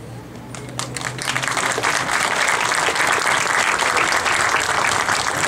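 Audience applauding, the clapping swelling up within the first second and a half and then holding steady.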